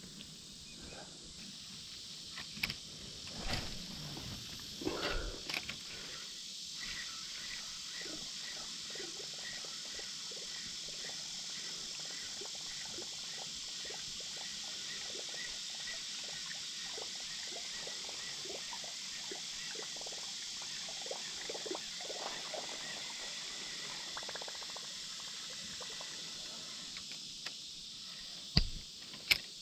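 Steady high-pitched drone of a summer insect chorus, with scattered light clicks and knocks from handling fishing gear, and two sharp knocks near the end.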